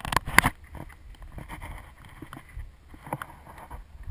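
A few sharp knocks and clatter on an action camera's housing as it is handled, then a faint low wind rumble on the microphone with a few light ticks.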